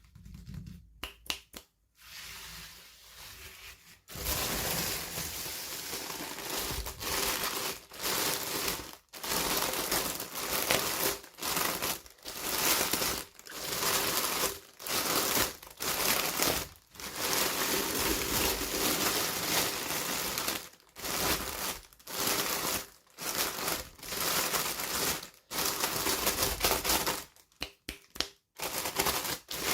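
Packaging being unwrapped by hand: dense crinkling and tearing noise in short bursts separated by brief pauses.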